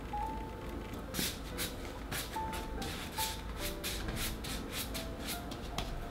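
Hands rolling and rounding a ball of bread dough on a tabletop: a run of soft rubbing swishes, about two or three a second, starting about a second in. Quiet background music plays underneath.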